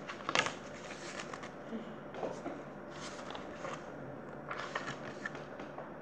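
Paperback picture book being handled: pages and cover rustling and crackling in several short bursts, the loudest about half a second in.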